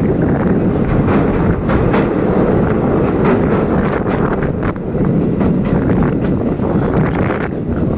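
Passenger train of the State Railway of Thailand running along the track: a steady rumble with irregular clicks of the wheels over the rails.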